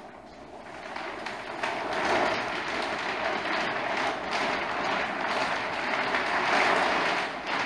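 Mylar laminate screacher sail rustling as it is rolled up on a code zero furler, the stiff sailcloth flapping and rubbing against itself as it wraps. The sound builds over the first couple of seconds and then goes on steadily.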